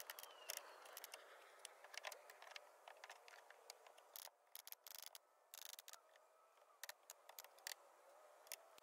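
Near silence, with many faint, irregular clicks and ticks scattered throughout.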